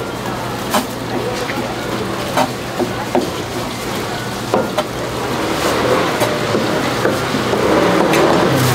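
Kitchen knife chopping through sundae (Korean blood sausage) and knocking on a cutting board: sharp, irregular chops about a second apart. Steady background noise underneath grows louder in the second half.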